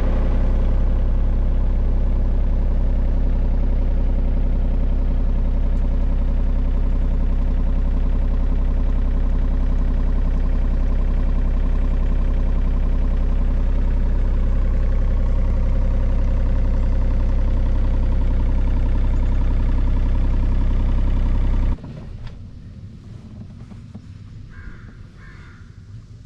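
John Deere 35G mini excavator's diesel engine running steadily at an even pitch, then shutting off abruptly about four seconds before the end, followed by two short calls.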